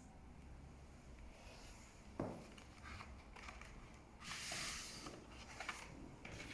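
Vinyl record packaging being handled: a single knock about two seconds in, then a short rustling slide a little after four seconds in, with small clicks and taps.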